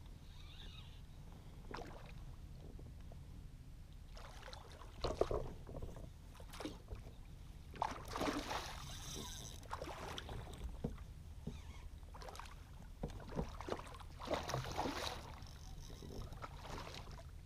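Water splashing in irregular bursts as a hooked sheepshead thrashes at the surface beside a kayak and is scooped into a landing net. The biggest splashes come about five, eight and fourteen seconds in, over a steady low rumble.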